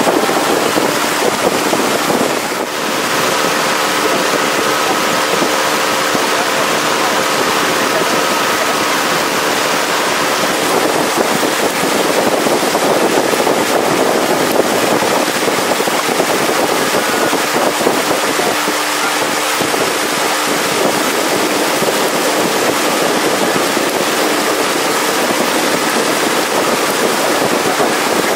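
Steady rush of water and wind from a river longboat under way, with the boat's motor running underneath as a faint steady hum that comes and goes.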